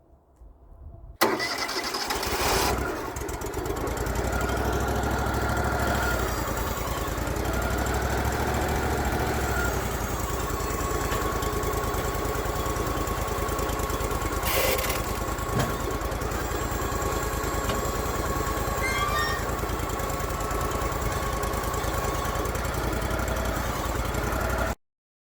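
Wood-Mizer portable band sawmill running steadily, its engine and band blade working through a pass on a red fir log. The sound comes in suddenly about a second in and cuts off abruptly near the end.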